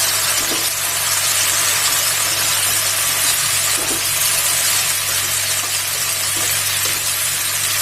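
Manchurian sauce and fried cauliflower sizzling steadily in a hot kadhai, an even hiss, with a low steady hum beneath it.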